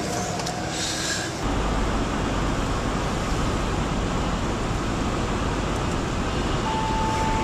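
Car cabin road noise at highway speed: a steady rumble and hiss of tyres and engine, which comes in suddenly about a second and a half in after a quieter stretch. A brief steady tone sounds near the end.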